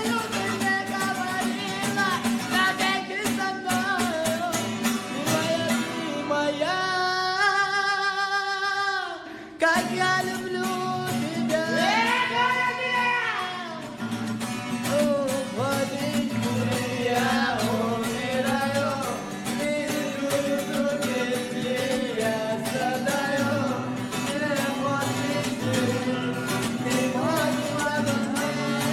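A man singing a song in Russian over strummed acoustic guitar, with one long held, wavering note in the middle.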